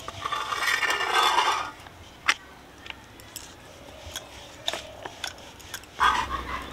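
Rolled, uncooked roti dough scraping and rustling against a hot clay tawa as the rotis are handled and turned, loudest for the first second or so, followed by a few sharp clicks.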